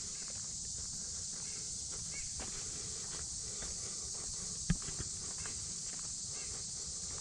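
Footsteps walking along a woodland dirt trail, irregular soft steps, over a steady high-pitched insect hum. A single sharp snap or click comes about two-thirds of the way through.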